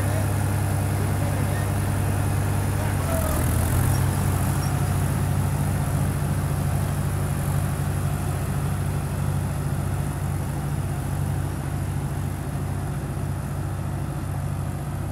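Tractor diesel engine running steadily under load while pulling a rotavator through a flooded paddy field. Its note steps up about three seconds in, then slowly fades a little as the tractor moves away.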